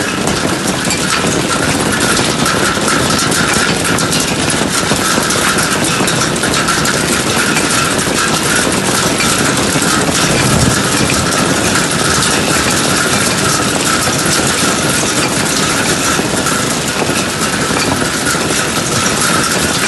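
Hail pelting down heavily, a dense steady clatter of many small ice impacts.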